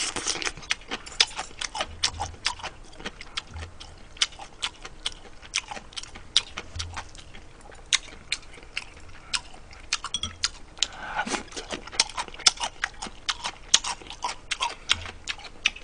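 Close-miked eating: chewing and mouth smacking, heard as many sharp, irregular clicks, several a second.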